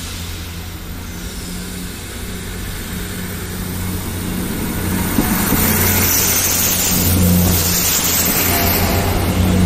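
South Western Railway Class 159 diesel multiple unit running in along the platform. Its diesel engines drone steadily and grow louder as the cab and carriages pass close by. From about halfway through, a rising rush of wheel and rail noise joins the drone.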